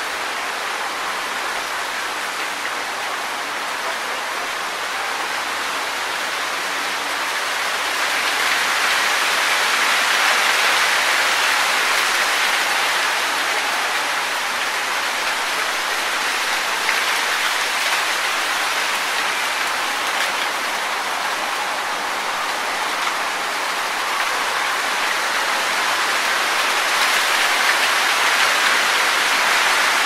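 Wind rustling through tree leaves in a steady hiss, swelling a little about eight seconds in and again near the end.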